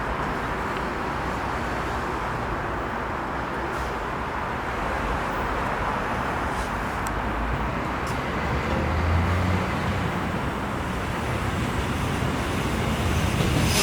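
Electric commuter train approaching along the platform, a steady rumble that grows louder toward the end.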